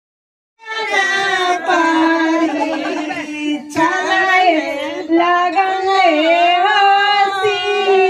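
Women singing a traditional Hindu wedding folk song with long, held, melodic notes, starting about half a second in after a brief silence.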